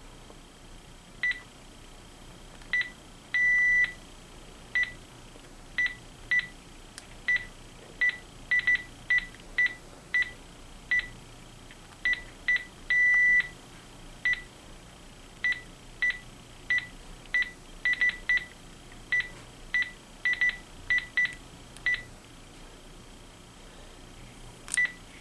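Keypad beeps from a Panasonic KX-TG6521 cordless phone handset as its buttons are pressed to scroll through the menus: many short beeps at one pitch, irregularly spaced, with two longer beeps about three and a half seconds in and again about thirteen seconds in.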